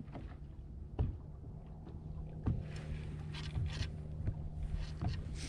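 Small boat sitting on open water: a steady low hum, with a few sharp knocks about a second, two and a half seconds and five seconds in, and short bursts of hiss from water or wind.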